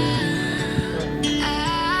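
Background pop song in a short break between sung lines, a melody line sliding between held notes over chords and bass.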